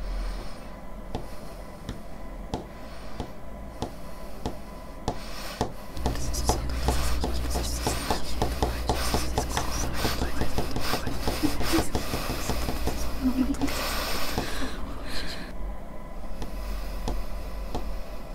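Dry scratching and rubbing, with a dense run of sharp ticks from about six seconds in until about fifteen, over a low steady hum.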